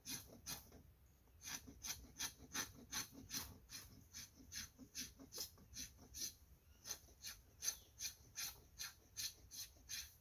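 A knife blade scraping a stick of wood into fine tinder shavings, in quick rhythmic strokes about two to three a second, with a short pause about a second in.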